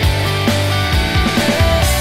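Rock outro music with a steady drum beat and sustained instrumental notes.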